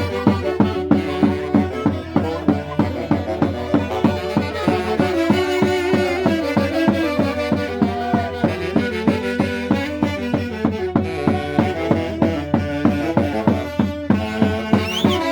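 Band playing Peruvian santiago dance music from the Mantaro valley: sustained melody instruments over a steady beat of about three strokes a second.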